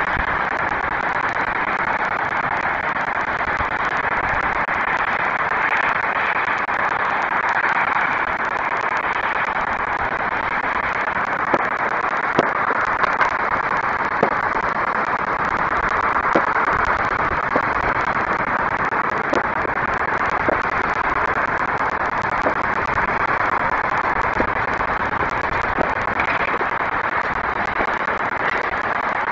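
Distant fireworks going off as scattered sharp cracks and pops from about a dozen seconds in, over a steady hiss of city background noise.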